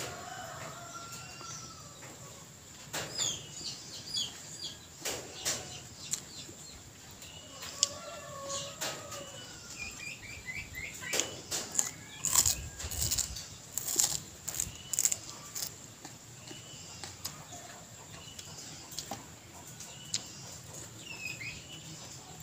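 Small birds chirping on and off, including a quick falling run of chirps about ten seconds in. Around the middle, crisp crunching bites and chewing of a raw lemongrass stalk.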